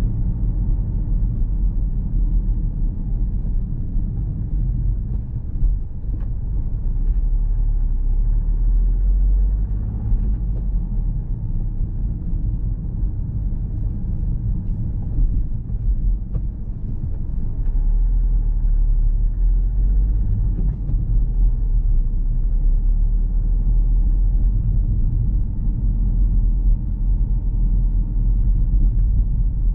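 Steady low rumble of a car driving along a road: tyre, road and engine noise, easing a little about halfway through and picking up again.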